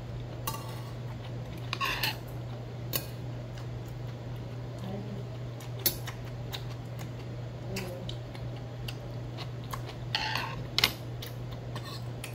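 A metal spoon scraping and clinking against a stainless steel bowl as rice is scooped and stirred, in scattered strokes, with louder scrapes about two seconds in and again around ten seconds. A steady low hum runs underneath.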